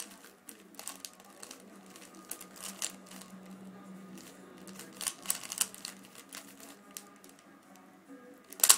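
A 3x3 Rubik's cube being turned fast by hand: its plastic layers clack in quick irregular bursts of clicks with short pauses between, the loudest burst near the end.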